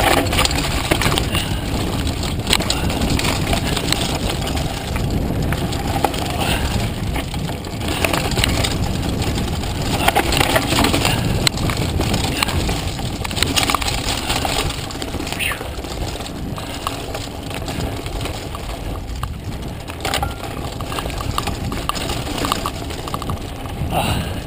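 Mountain bike ridden fast down a rough dirt trail: a steady rush of wind on the camera's microphone and tyre rumble, with frequent rattles and knocks from the bike over bumps.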